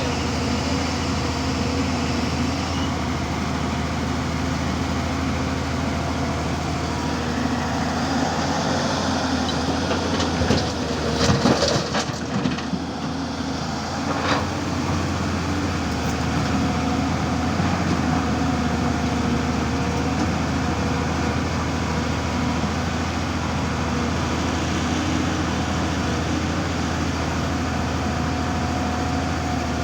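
Diesel engine of a Tata 200 Super hydraulic excavator running steadily under work. About a third of the way through there is a short cluster of clanks and knocks.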